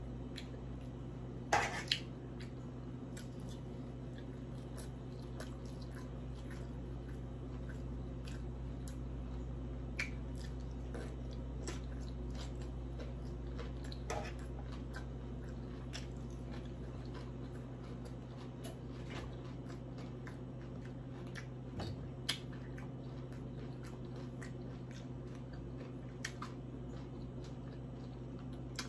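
Close-miked chewing and mouth sounds of someone eating a poke bowl of raw salmon and rice, with occasional sharp clicks. A steady low hum runs underneath.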